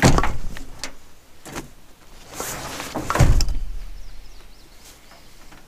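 Camping gear being set down and shifted on a pickup's tailgate: a knock at the start, some rustling and handling, then a heavier thump about three seconds in as a loaded pack lands.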